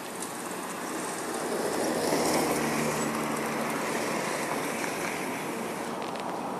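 Motor vehicles passing close by on a road, engine noise swelling to a peak about two seconds in and then easing off to a steady running sound.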